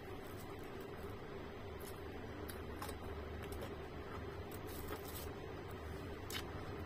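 A person chewing and eating by hand, with scattered small wet clicks and smacks of mouth and fingers over a steady low room hum.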